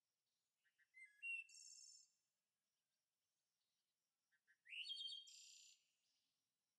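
A songbird singing faintly in the background: two similar high phrases about three seconds apart, each a couple of quick chirps running into a longer trill.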